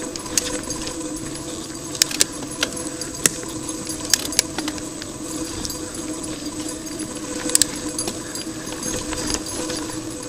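Mountain bike rolling over rough forest singletrack, its chain and parts rattling steadily, with sharp knocks as the wheels hit roots and rocks.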